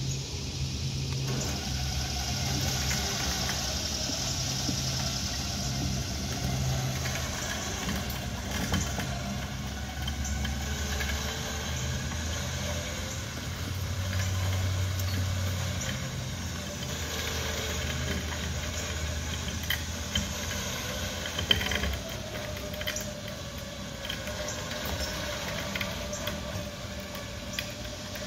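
Old Chevrolet pickup's engine running at low speed while the truck pulls a chain wrapped around a log to roll it. The engine hum stops about three quarters of the way through, and a few sharp knocks come through along the way.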